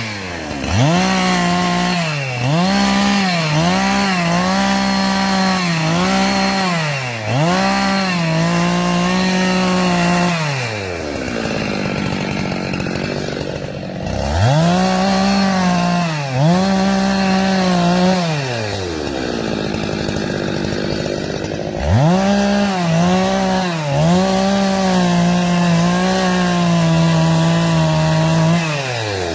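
Two-stroke chainsaw revved to full throttle again and again, each burst holding a high steady pitch for about a second before falling back, with two spells where it drops back toward idle and a longer held full-throttle run near the end before it falls off.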